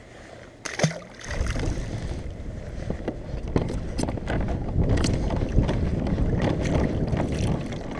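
Wind rumbling and buffeting on the microphone, with water and hull noise from the kayak on choppy sea and scattered small knocks; it rises sharply about a second in, after a quieter start with one sharp knock.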